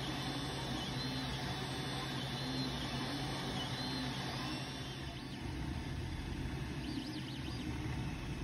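Creality Ender 3 Pro 3D printer printing: a steady hum from its cooling fans, with the stepper motors whining in short tones that rise and fall in pitch as the print head moves back and forth.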